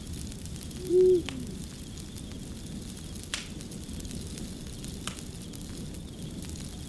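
Crackling fire, a steady hiss with a few sharp pops. About a second in, an owl hoots once, a short low call that falls at the end.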